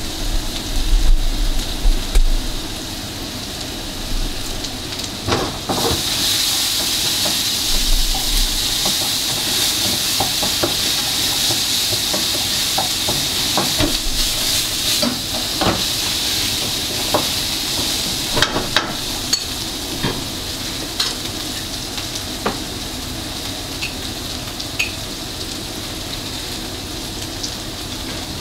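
Food sizzling in hot oil in a pan while being stirred, with scattered clicks and scrapes of the utensil against the pan. The sizzle gets much louder about six seconds in. A few dull bumps come in the first couple of seconds.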